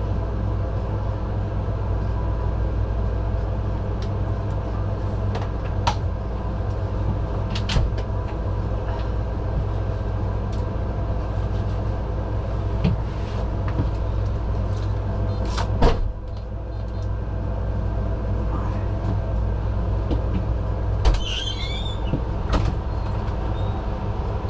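Steady engine and road rumble inside a moving ambulance's patient compartment, with a constant hum and scattered light rattles and clicks from the fittings. There is a sharper knock about two-thirds of the way through.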